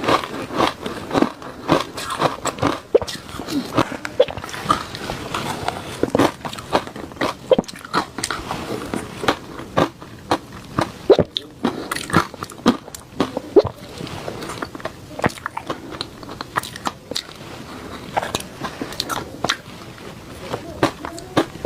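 Close-miked chewing of refrozen shaved ice from the freezer: a quick, irregular run of sharp crunches as the ice is bitten and ground between the teeth.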